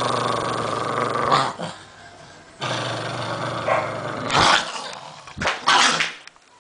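Small black-and-tan dog growling angrily with its teeth bared: two long, steady, low growls, then a few short, sharp outbursts about four and a half to six seconds in. It is a warning snarl at the person holding the camera.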